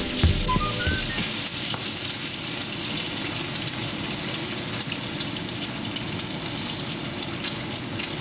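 Bacon sizzling in a frying pan: a steady hiss dotted with small pops and crackles.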